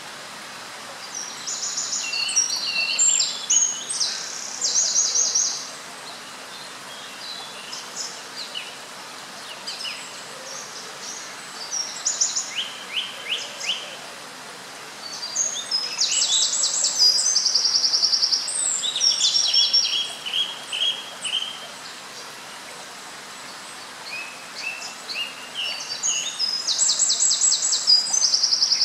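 A small songbird singing loud, fast phrases of high trills and chirps, in several bouts of a few seconds with short pauses between, over a steady background hiss.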